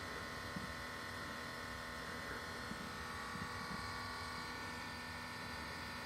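Electric fuel pump in the fuel tank of a 2016 Subaru WRX STI humming steadily with the engine switched off. It is the pump running its fuel-system pressure test, which is normal.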